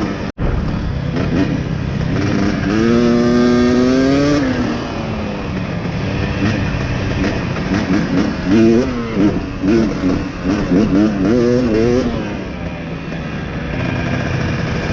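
Dirt bike engine running under throttle while ridden, pitch climbing steadily for a couple of seconds, then a run of quick rises and falls in revs through the middle.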